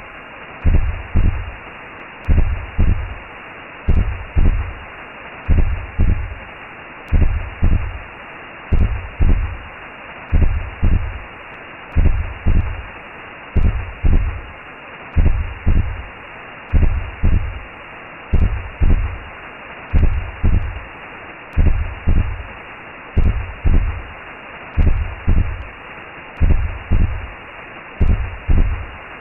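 Recreated womb sound: a heartbeat's double thump, about one beat a second, steady under a constant whooshing hiss.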